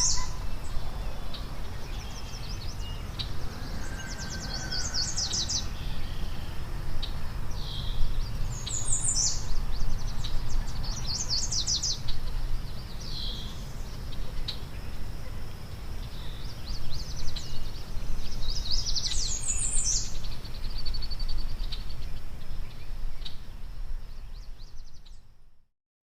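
Wild birds calling: short, high, rapidly stuttering chirp phrases repeated every few seconds over a steady low background rumble. It fades out near the end.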